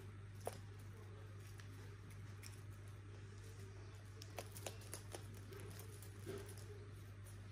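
Faint scattered taps and soft thumps of two cats' paws on a wooden floor as they pounce and bat at a wand toy, with a cluster of taps between about four and six and a half seconds in. A steady low hum runs underneath.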